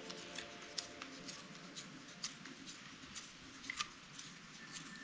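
Small wood fire crackling: faint, irregular sharp pops over a soft hiss.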